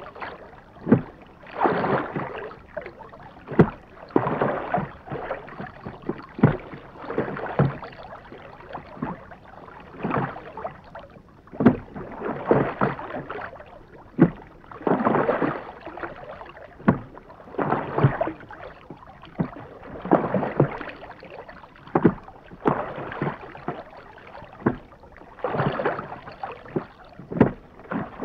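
Rowboat being rowed steadily: a water swish from the oars with sharp knocks, about one stroke every two and a half seconds.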